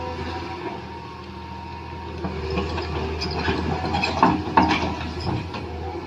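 Small electric gear motors of a radio-controlled toy construction vehicle whining in short spells, with irregular clicks and rattles from about two seconds in.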